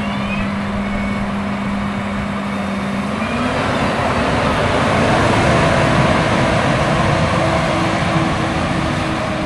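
Case IH Magnum 380CVT tractor's diesel engine driving past; its steady drone rises in pitch about three seconds in as the engine speeds up, and grows louder as the tractor comes close, then eases off near the end.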